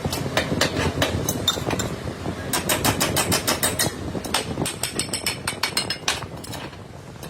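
Quick runs of sharp metallic taps and clicks, several a second, over the steady low rumble of running workshop machinery.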